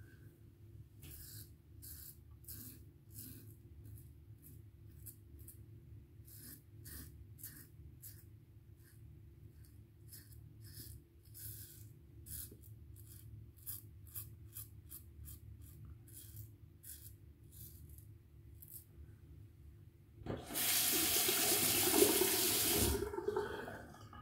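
Faint, short scraping strokes of a Merkur Futur safety razor shaving lathered stubble, one after another every half second or so. About twenty seconds in, a tap runs loudly at the sink for about three seconds.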